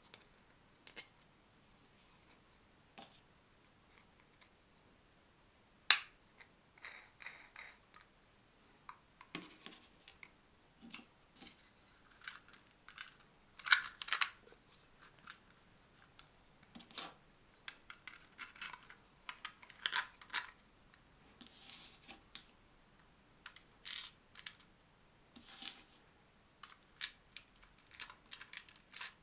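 Hands handling and fitting together 3D-printed plastic clock parts and a quartz clock movement: scattered light clicks, taps and clatters of plastic on plastic. A sharp click comes about six seconds in, and the loudest clatter falls around the middle.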